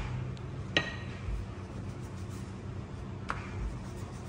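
Kitchen clatter from rolling out chapati dough and cookware: three sharp knocks, at the start, under a second in with a brief metallic ring, and about three seconds in, over a steady low hum.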